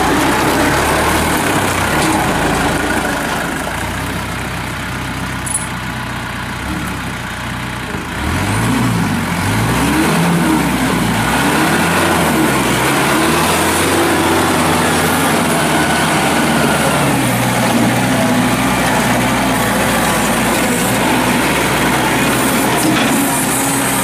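2006 New Holland TC55DA compact tractor's diesel engine running as the tractor drives, its pitch rising and falling several times around the middle before settling into a steady run.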